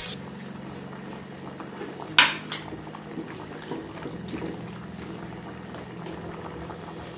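Metal ladle stirring a pot of boiling curry, with scattered small clinks and one sharp clank of metal on the pot about two seconds in, over a steady low hum.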